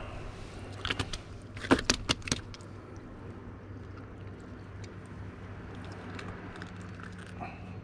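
A few sharp clicks and knocks, bunched in the first two and a half seconds, from a freshly caught fluke being handled and unhooked on a wet wooden pier deck. Under them runs a steady low engine-like hum.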